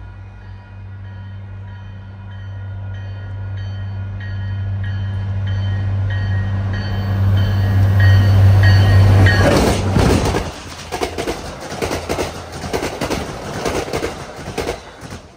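MBTA commuter train approaching and passing: the diesel locomotive's low engine drone swells to its loudest as it goes by about nine to ten seconds in, with a bell ringing about twice a second on the approach. Then the passenger coaches rush past with their wheels clicking over the rail joints, fading near the end.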